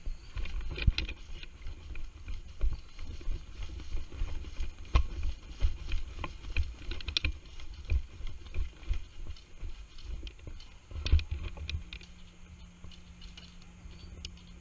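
Irregular footsteps and knocking of gear from a person moving about, with low rumbling on the body-worn microphone. Quieter near the end.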